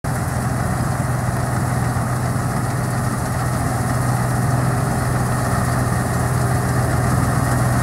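John Deere 330 combine harvester running steadily while cutting oats: a constant engine drone with a strong low hum, mixed with the noise of the working header and threshing machinery, growing slightly louder as it comes closer.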